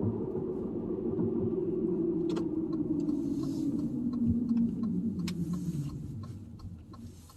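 Car cabin noise while driving: a low engine and road drone whose pitch slowly drops as the car eases off, fading away near the end.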